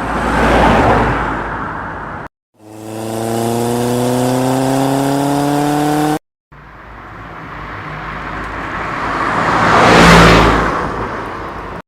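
Three separate car sound effects with brief silences between them: a car passing by, swelling and fading in about two seconds; an engine revving with a slowly rising pitch for about three and a half seconds; then a car approaching and passing, loudest near the end.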